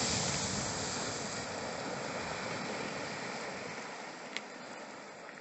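Strokkur geyser erupting: a dense rush of water and steam that fades steadily as the column collapses. There is a single sharp click about four seconds in.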